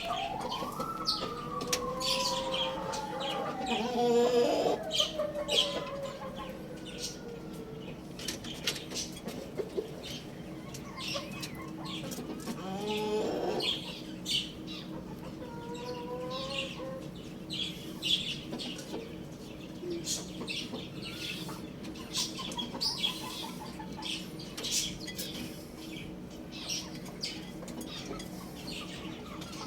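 Chickens calling and clucking amid many sharp clicks and wing flaps, with a longer call about thirteen seconds in.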